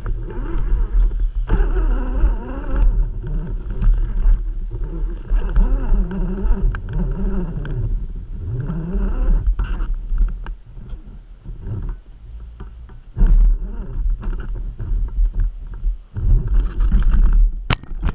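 Electric RC crawler's motor and gear drive whining, the pitch rising and falling as the throttle is worked, over a heavy low rumble of the chassis jolting over the course. Past the middle it is quieter, with scattered sharp knocks of the chassis and tyres on rock.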